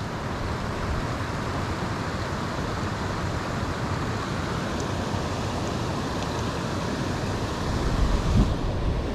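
Steady rushing outdoor background noise with no distinct events. A brief low rumble of wind or handling on the microphone near the end.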